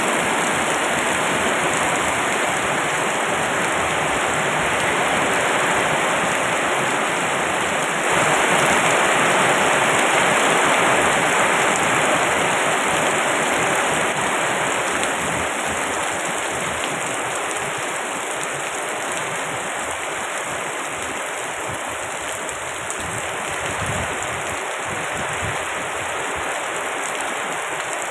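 Heavy rain falling steadily, a dense hiss that swells about eight seconds in and then eases gradually.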